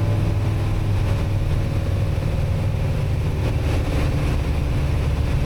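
Piper Archer's four-cylinder Lycoming engine and propeller running steadily in flight, a constant low drone heard from the cabin.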